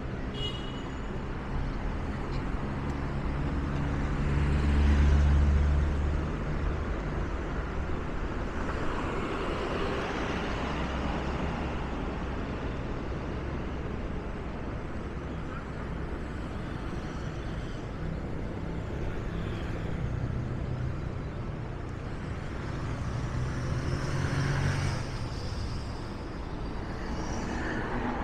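City road traffic: a steady wash of vehicles passing on the road alongside. A passing vehicle's low engine rumble swells loudest about five seconds in, and another passes near the end.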